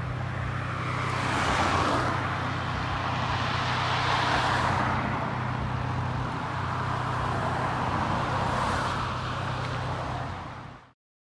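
Road traffic: cars passing one after another, the noise swelling and fading about three times over a steady low hum, then cutting off abruptly near the end.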